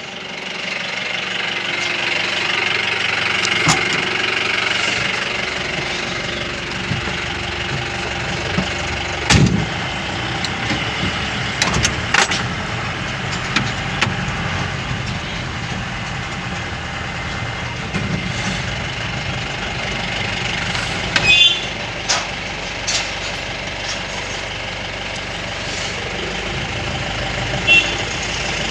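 A motor vehicle being driven, its engine running steadily under road noise, with several short knocks and rattles along the way.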